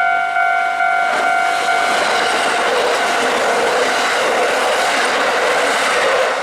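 Japanese level-crossing warning bell ringing in a rapid repeating electronic ding. About a second in, a Kintetsu Nara Line electric train passes over the crossing, and its wheel-on-rail rumble and hiss drown the bell until the train clears near the end.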